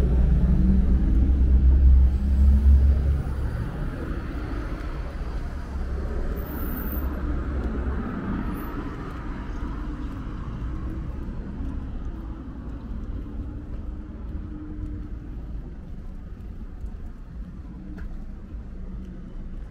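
Road traffic on a wide city street: a lorry passes close with a heavy low rumble that dies away about three seconds in, leaving a quieter, steady wash of passing cars.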